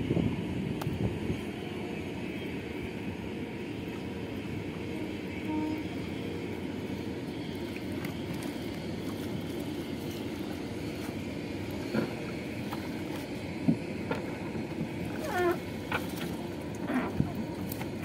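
A cast net being hauled by hand into a wooden boat over a steady low rumble, with a few short knocks and wet slaps in the last few seconds as the net comes aboard.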